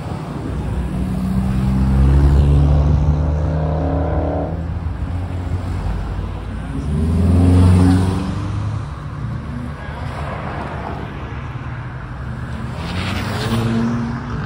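Car engines running as cars drive past, loudest about two seconds in and again about seven seconds in. The pitch climbs as one car accelerates around three to four seconds in, and another engine swells near the end.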